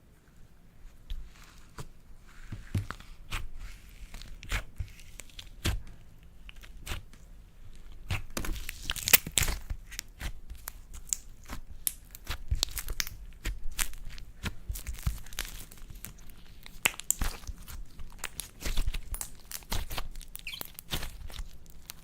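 Slime being worked by hand: a run of sharp sticky crackles, pops and tearing sounds, sparse at first and much denser from about eight seconds in.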